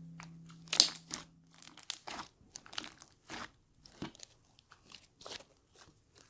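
Slime being worked by hand, giving a string of crisp crunching pops and clicks, two or three a second and irregular.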